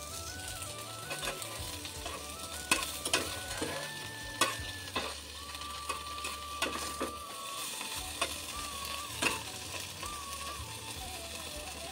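Small fish frying in hot oil in a wok, sizzling steadily, while a spatula is stirred through the pan and knocks against it with sharp clicks about a dozen times.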